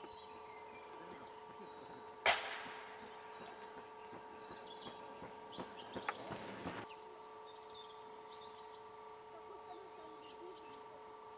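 Small birds chirping, with a sudden sharp knock about two seconds in and a brief noisy burst around six seconds in.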